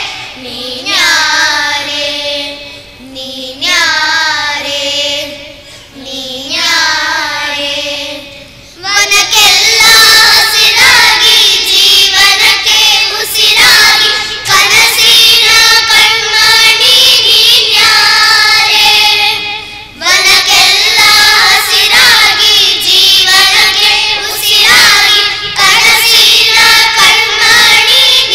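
A group of children singing together in chorus. The singing is softer for the first several seconds, then the full group comes in loud about nine seconds in, with a brief drop near the twenty-second mark before it carries on.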